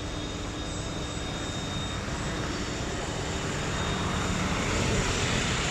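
Diesel engine of a Hitachi floating excavator running steadily close by, growing somewhat louder about four seconds in.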